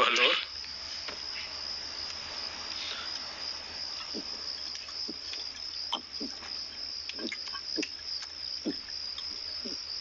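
Steady night chirping of crickets. Over it, from about four seconds in, a man gulps beer straight from a bottle as he chugs it, with short swallowing sounds about once a second. A brief voice sound comes at the very start.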